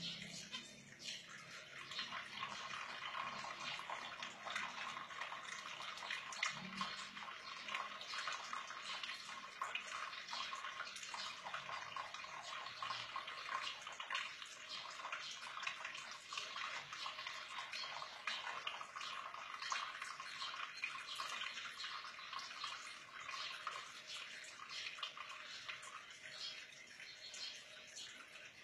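Water running and splashing in a stainless steel sink, a steady crackling patter of small splashes.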